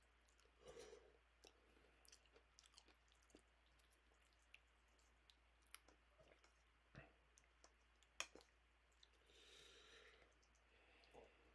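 Near silence with faint, scattered clicks of a fork against a bowl of instant noodles, and two brief soft rustling noises, one near the start and one near the end.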